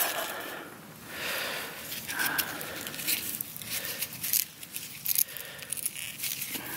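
A rusty radiator support mount bolt with its rubber cushions being handled and turned in a gloved hand, giving scattered light clicks, ticks and rustles.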